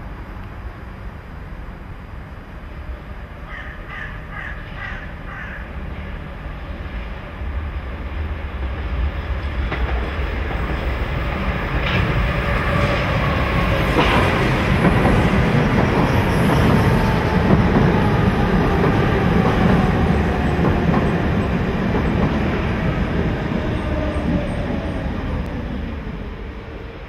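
A Hamburg Hochbahn DT 2 U-Bahn train pulls into the station, getting steadily louder, with a couple of sharp wheel clacks on the track. A whine falls in pitch as it brakes to a stop.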